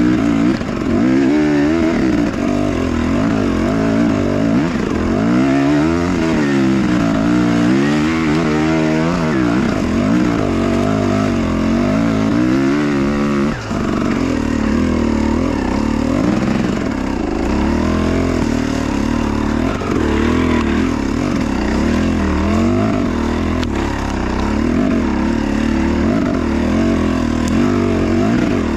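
Enduro motorcycle engine running under load, its pitch rising and falling again and again as the throttle opens and closes, with the widest swings in the first half.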